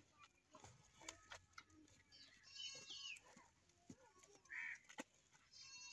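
Faint bird chirping: a quick high trill about halfway through and another at the end, with short calls between and scattered soft clicks.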